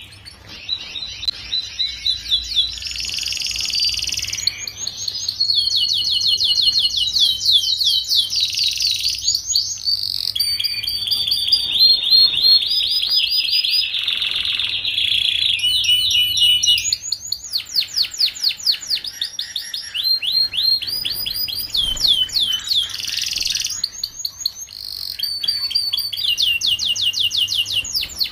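Domestic canary singing a long, unbroken song of fast trills. Each trill repeats one high note many times before switching to a different one.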